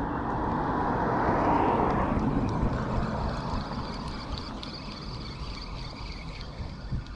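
A vehicle passing by: a broad rushing engine and traffic noise that swells to its loudest about a second and a half in, then fades away.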